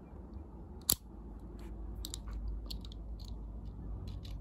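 A small die-cast toy car being handled: one sharp click about a second in, then scattered small ticks and clicks with soft handling rubbing underneath.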